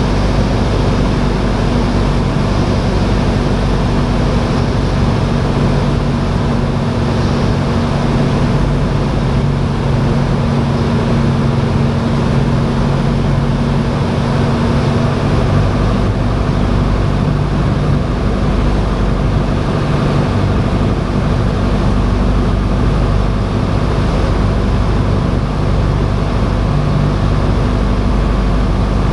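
Single-engine propeller airplane's engine and propeller droning steadily in flight, heard from inside the cockpit.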